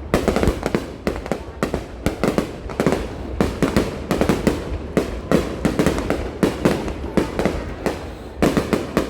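Fireworks going off in a dense, irregular barrage of sharp bangs, several a second, over a steady low rumble.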